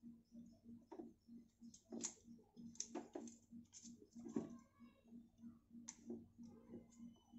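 Faint clicks and rustles of plastic RO purifier tubing and push-in fittings being handled and pressed into place, over a faint low pulsing hum that repeats about four times a second.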